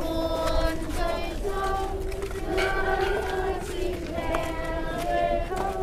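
Voices singing a slow melody of held notes that step up and down in pitch, over a steady low rumble.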